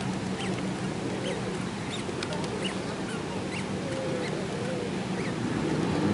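Open-air ambience: a steady wash of background noise with many short, high chirps scattered through it and a few faint wavering calls about halfway through.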